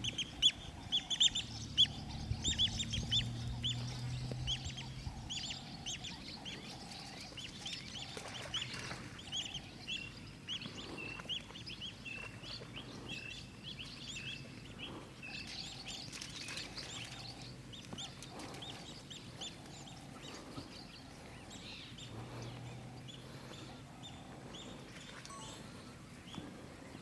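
African wild dogs twittering: a chorus of rapid, high-pitched, bird-like chirps, several a second, busiest in the first half and thinning out toward the end.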